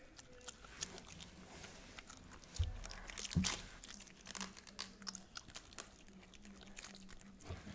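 A small dog crunching and chewing raw cabbage leaf, a run of crisp irregular bites, with a dull low thump about three seconds in.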